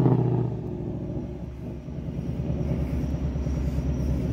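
Car engine and exhaust dying away over the first couple of seconds as the car drives off after a hard launch. From about two seconds in, a steady low engine rumble builds up again.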